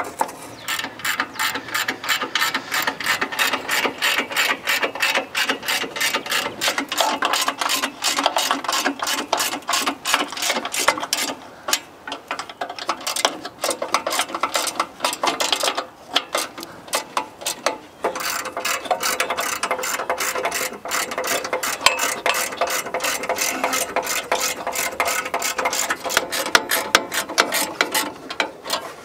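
Hand ratchet wrench clicking fast and steadily as it is worked, in long runs that stop briefly a few times.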